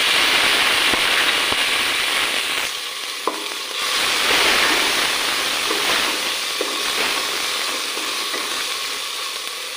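Onion, spices and ginger-garlic paste frying in oil in an aluminium pot, sizzling loudly with a spoonful of water just added, stirred with a wooden spatula that now and then knocks lightly on the pot. The sizzle swells again about four seconds in and dies down toward the end.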